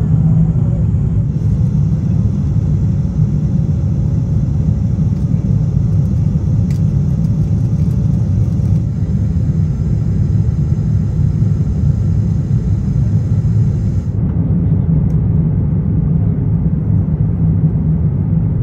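Airbus A350-900 cabin noise during the climb: a steady low rumble of engines and airflow heard from a window seat over the wing.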